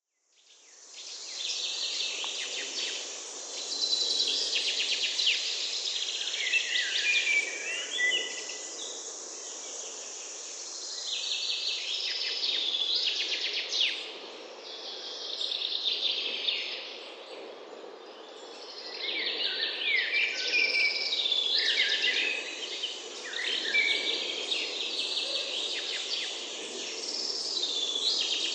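Summer outdoor ambience of many birds singing, overlapping chirps and trills, over a steady low background hiss. It fades in over the first second or two, and the birdsong swells and thins out in turn.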